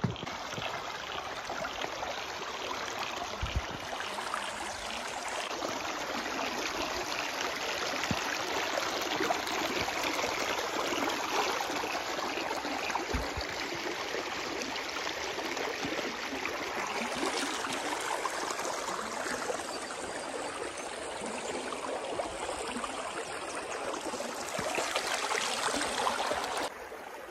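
Shallow river running over rocks and stones: a steady rushing of water.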